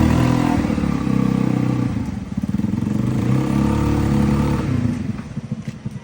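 Trailmaster Ranger 200 UTV's gasoline engine being revved: it runs up, drops back about two seconds in, revs again, then eases down near the end.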